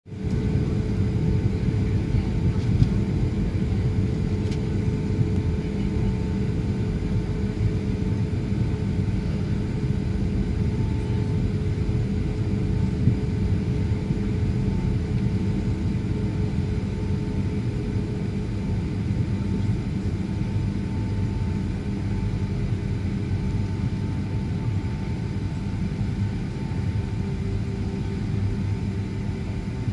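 Jet airliner cabin noise heard from a window seat while taxiing: a steady low rumble from the engines running at low power, with a constant hum tone over it.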